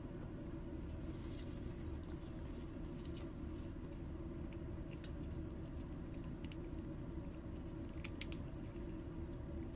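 Light clicks and small metallic clinks of hand tools and metal toy-truck parts being handled, scattered and irregular over a steady low hum, with one sharper click about eight seconds in.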